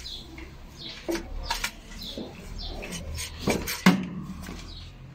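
A van's car battery being handled and lifted out of its under-seat compartment, with several sharp knocks and clinks of the battery case and its metal clamps and cables against the compartment. The flat battery is coming out to be charged.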